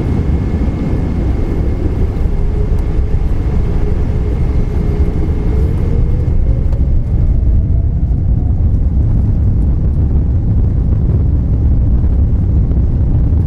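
Boeing 777 on its takeoff roll, heard inside the passenger cabin: a loud, steady low rumble of engines and wheels, with a whine rising in pitch through the middle as the jet engines spool up and the aircraft accelerates.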